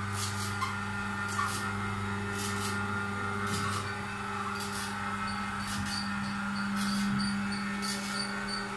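Electric motor of a home-built platform lift humming steadily as the platform carries a person down. The deepest part of the hum drops away about four seconds in.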